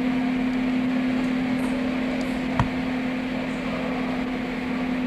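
Marshmallow-factory machinery running with a steady hum and a low droning tone. A single sharp knock comes about two and a half seconds in.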